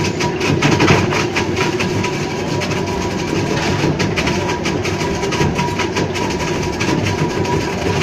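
Electric ice block crusher running and grinding a block of ice: a steady mechanical noise full of rapid rattling clicks from ice chips, with a thin steady whine underneath.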